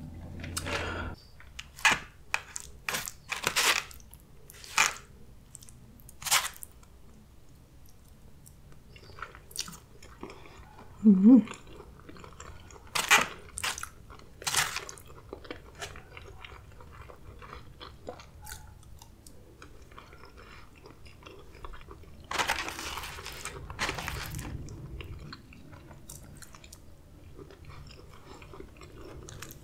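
Close-miked eating sounds: a sip of horchata through a straw in the first second, then chewing with wet mouth clicks and smacks, and a fork scooping food from a styrofoam takeout tray.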